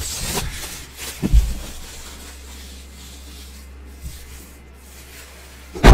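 Plastic shrink-wrap crinkling and tearing as it is stripped off a board game box, with a thump about a second and a half in. It goes quieter in the middle, and a loud thump, the loudest sound, comes at the very end.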